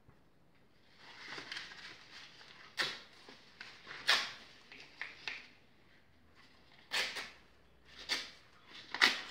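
Thin cardboard from toilet-paper roll tubes being torn by hand into small pieces: a series of short rips, starting about a second in.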